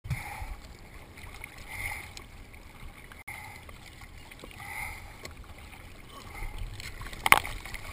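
Seawater sloshing and splashing around a camera at the ocean surface, heard muffled through a sealed dive housing, in soft surges about every second and a half. A sharp knock near the end.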